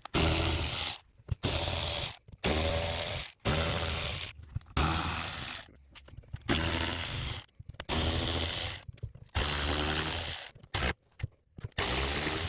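A ratchet backing out the T30 Torx bolts that hold the halves of an Audi 4.2 V8 intake manifold together. It runs in about ten short bursts of roughly a second each, with brief pauses between them.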